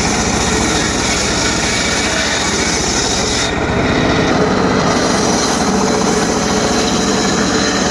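Homemade circular saw running and cutting short pieces of teak wood. The high cutting noise drops away about three and a half seconds in and returns about a second and a half later as the blade goes back into the wood.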